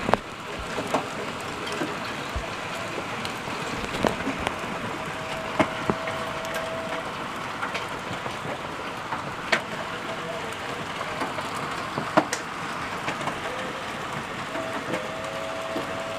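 Hail falling in a steady patter, with sharp cracks every few seconds as single hailstones hit a hard surface.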